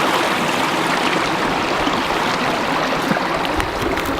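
Small creek running steadily close by, the even rush of flowing water.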